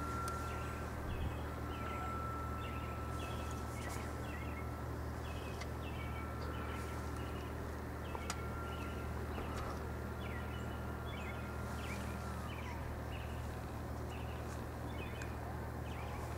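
Small birds chirp repeatedly over a steady low hum. The thin, faint whine of the RC plane's electric motor carries high overhead, and its pitch drops about twelve seconds in.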